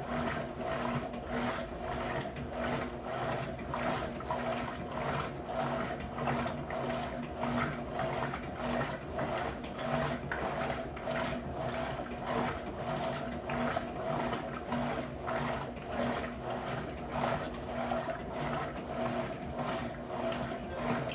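Electrolux LT12F washing machine running: a steady motor hum under rhythmic swishes of water, about two or three a second.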